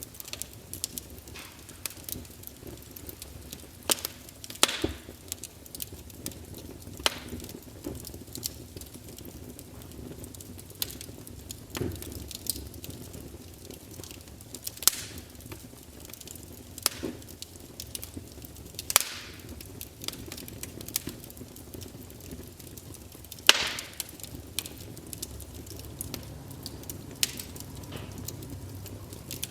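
Campfire burning with a low steady rumble and irregular sharp crackles and pops from the burning wood, a few louder pops standing out, the loudest near the end.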